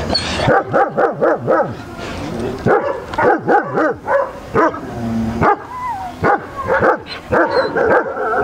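Dogs barking in quick runs of short barks, with a brief gliding whine about six seconds in.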